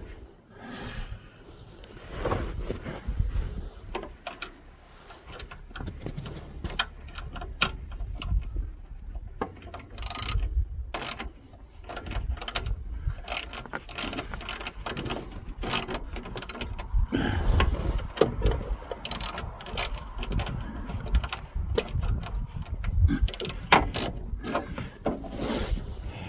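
Ratchet wrench clicking in irregular runs while bolts are tightened on a snowblower's auger housing, with scattered metallic knocks from the tool and parts.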